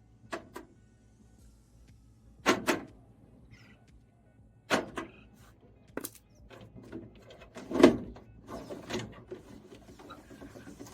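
Electric door lock actuator in a car door, powered from a small battery, snapping the lock rod between locked and unlocked: a series of sharp mechanical clacks, several in quick pairs.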